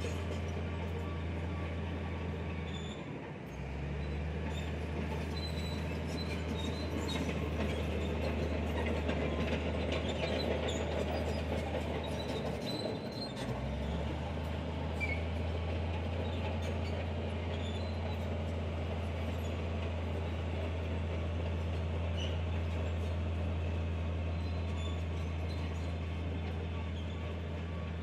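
Komatsu bulldozer's diesel engine running steadily under load, with the clatter of its steel tracks as it pushes sand. The low engine drone drops out briefly about three seconds in and again about thirteen seconds in.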